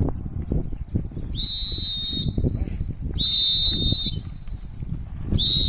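Three steady, high-pitched signal tones, each about a second long, sounding a couple of seconds apart over low rustling and movement noise.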